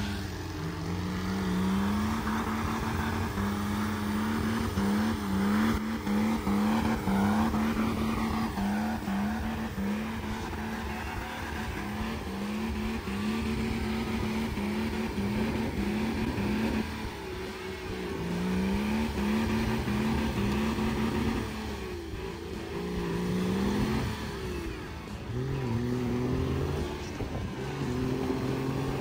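Diesel engine of a Nissan Patrol with an M57 engine swap, revving hard while its tyres spin and churn through deep snow.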